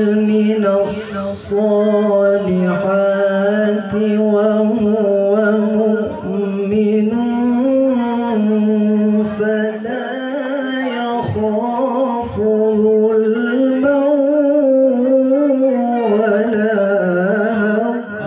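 A male qari reciting the Qur'an in a melodic, sung style into a microphone. He holds long notes with winding ornaments, and his pitch climbs around the middle and again later on.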